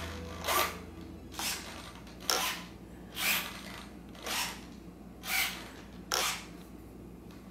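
Small 9-gram servos in a Walkera E-Eyes foam RC plane whirring in short rasping bursts, about one a second, seven in all, as the ailerons and then the elevator are swung back and forth from the transmitter sticks in a pre-flight control-surface check.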